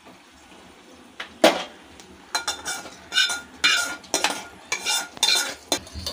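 Metal scraping and clinking as the last of a hot oil tempering is scraped out of a kadai into a steel vessel of curd: one sharp click about one and a half seconds in, then a series of quick scrapes with a slight metallic ring.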